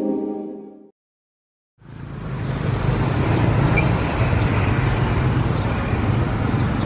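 A sustained music chord fades out, and after a second of silence steady city street traffic noise comes in, a continuous low hum of passing vehicles.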